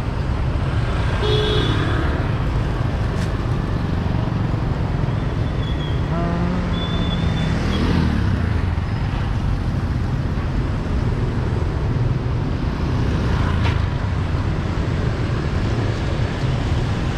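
Steady street traffic noise from vehicles going by, with one passing closer about eight seconds in.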